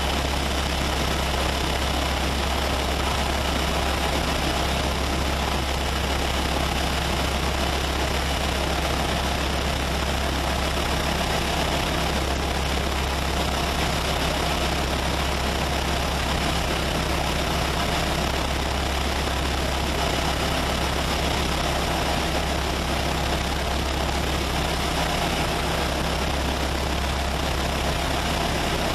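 Diamond HK36 Super Dimona motor glider's piston engine and propeller running steadily, an even drone with no change in pitch or level.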